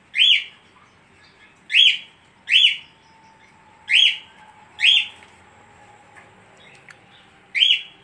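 Caged budgerigar giving six loud, short, shrill chirps at uneven intervals, spaced about one to three seconds apart.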